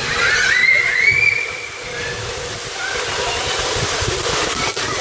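Swimming pool ambience: a steady rush of water and sloshing, with high, wavering squeals from a child's voice in the first second or so.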